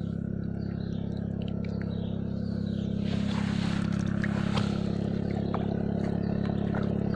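An engine running steadily with a low, even drone. Some rustling comes in around the middle, and a few short chirps are heard.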